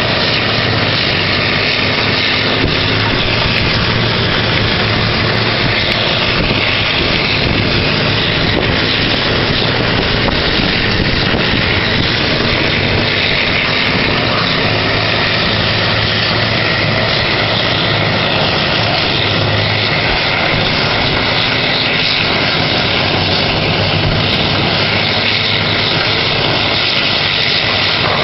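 Horizontal wood grinder and excavator running together: a loud, steady drone of heavy diesel machinery that does not let up.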